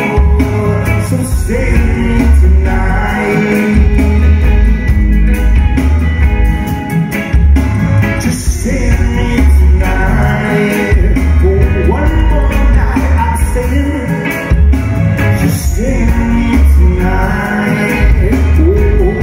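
Live band playing a song: a lead singer singing over electric guitars, bass guitar and a drum kit, with strong bass.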